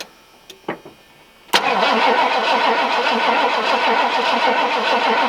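The starter of a Ford gas work truck cranking its engine. It kicks in suddenly about a second and a half in and grinds on with an even rhythm without the engine catching.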